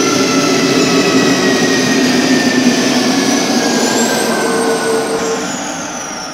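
Simulated jet turbine sound from the Dymond USA sound system's exciters: a loud whine of several high steady tones over a rushing noise. About four seconds in one tone rises, and near the end the tones slide down and the sound fades as it winds down.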